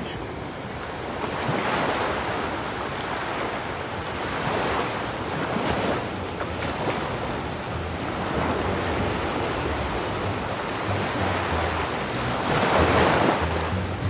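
Sea waves washing onto a beach, the surf swelling about two seconds in, again around five to six seconds, and loudest near the end. Wind rumbles on the microphone underneath.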